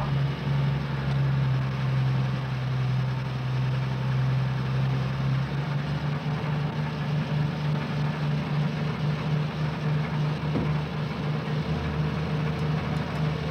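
Truck engine idling, a steady low hum, as the sound effect for a cartoon garbage truck.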